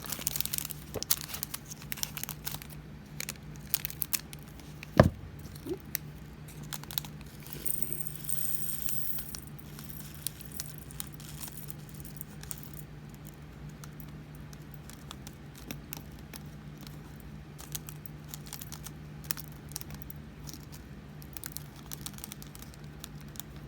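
A small plastic bag of diamond-painting resin drills being cut open and handled: crinkling plastic with scattered clicks and rattles of the tiny drills, and one sharp knock about five seconds in. A steady low hum runs underneath.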